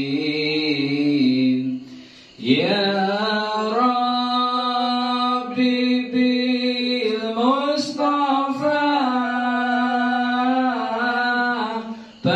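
A man's voice chanting sholawat, Islamic devotional praise in Arabic, into a microphone. He holds long notes that bend slowly in pitch, with a short pause for breath about two seconds in and another near the end.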